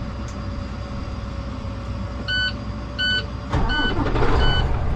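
Semi truck's diesel engine idling while its repaired air system cycles. From about two seconds in, a warning beeper repeats about one and a half times a second. Just past halfway the engine sound grows louder.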